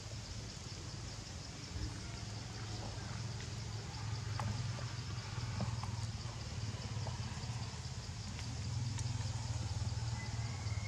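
Outdoor ambience: a steady low motor hum, a little louder in the second half, under a constant high-pitched insect buzz.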